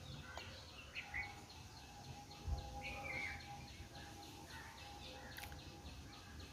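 Faint outdoor ambience of birds chirping: an even run of quick high chirps, about four a second, with a few separate calls over it. There is a faint steady hum and a soft low thump about two and a half seconds in.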